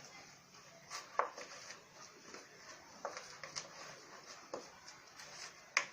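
A spoon clicking and scraping against a bowl at irregular intervals, mixing spices.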